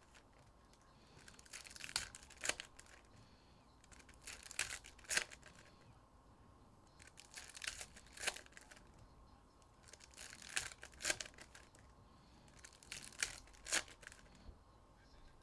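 Foil trading-card packs being torn open one after another: five short bursts of tearing and crinkling wrapper, about every three seconds.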